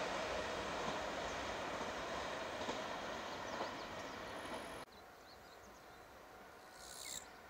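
A passing train's running noise receding and fading away, cut off abruptly about five seconds in, leaving faint outdoor ambience.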